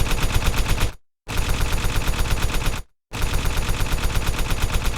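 Rapid, evenly spaced sharp cracks, about nine a second, that break off into dead silence twice.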